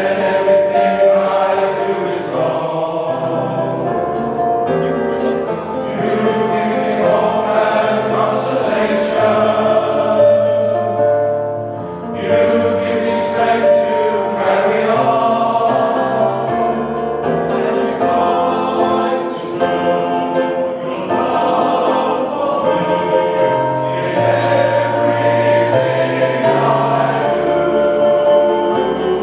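Male voice choir singing in full harmony, the held chords changing every second or two.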